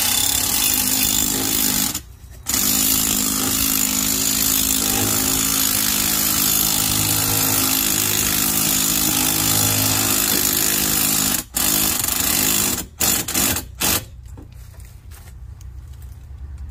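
Cordless impact driver with a slotted 24 mm impact socket hammering a hurricane tie-down auger anchor into the ground. It runs for about two seconds, pauses briefly, then runs steadily for about nine seconds, and ends with a few short bursts before it stops.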